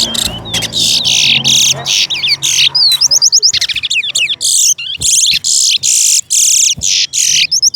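Towa-towa (chestnut-bellied seed finch) singing a long, loud song of rapid high notes, short buzzy phrases and quick gliding whistles strung together with hardly a break: one of the songs counted in a bird-singing race.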